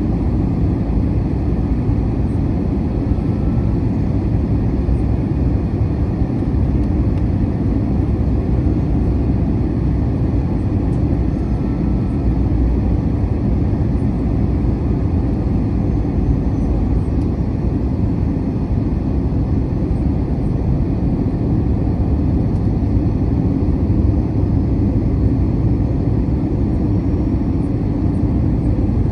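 Steady low roar of an Airbus A321-200 in flight, heard from inside the cabin: engine and airflow noise, even and unbroken.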